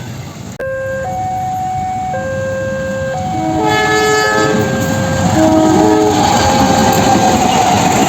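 Railway level-crossing warning siren sounding steady tones that alternate in pitch about once a second. From about three and a half seconds in, more tones overlap and the rumble of an approaching train grows louder.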